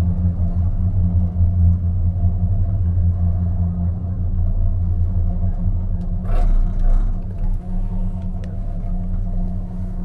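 Steady low hum and rumble inside a cable-car cabin riding along its haul cable, with a brief louder rattle a little after six seconds in.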